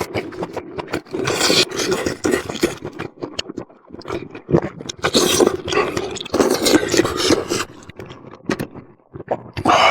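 Close-miked eating sounds: chewing and smacking of food in the mouth, in irregular bursts with many small clicks.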